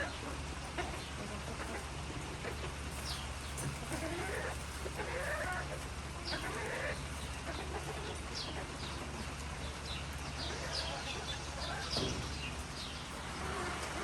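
Farm animals calling: scattered short calls that bend up and down in pitch, with many brief high chirps, over a steady low hum.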